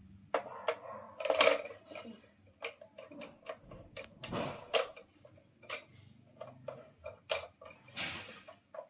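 Ring light and stand parts being handled and fitted together: an irregular run of sharp clicks and knocks, with a few brief rustles.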